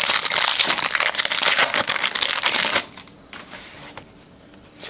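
Foil wrapper of a trading card pack being torn open and crinkled by hand, a loud crackly rustle that stops about three seconds in. After it come softer rustles and small clicks as the cards are handled.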